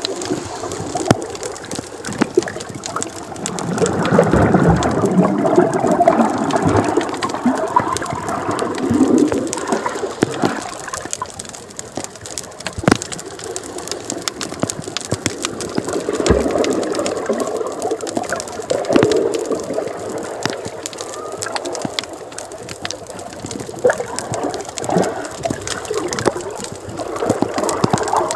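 Water heard with the camera under the surface: muffled rushing and gurgling that swells louder and fades several times, dotted with many short sharp clicks.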